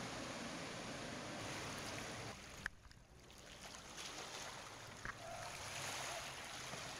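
Outboard engines of two RNLI Atlantic-class rigid inflatable lifeboats running at speed, a steady low drone under wind noise on the microphone. About two seconds in the sound cuts off abruptly with a click, and a quieter hiss of wind and water follows.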